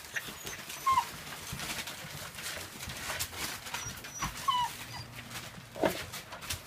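Rough collie puppies, about eleven weeks old, whimpering: a few short, high squeaks, one falling in pitch near the end, among light clicks and knocks.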